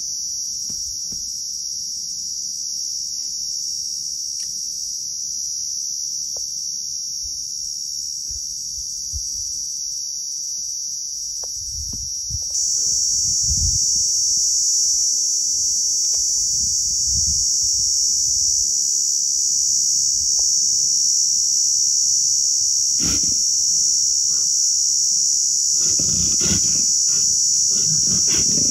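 Steady high-pitched drone of an insect chorus, which jumps louder a little under halfway through. In the last few seconds come rough bursts of growling as a sloth bear and a leopard close in on each other.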